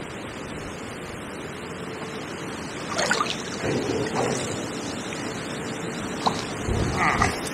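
Gale-force wind buffeting the microphone over the steady rush of river water, with a few louder rustles and knocks about three seconds in and again near the end.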